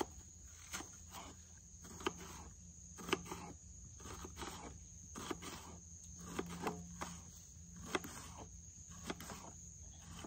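Small knife cutting an onion on a wooden cutting board: short, sharp knocks spaced irregularly about a second apart. Insects keep up a steady high call behind it.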